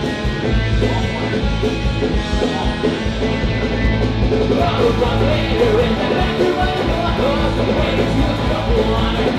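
Loud punk rock music: guitars and a driving drum beat, with singing.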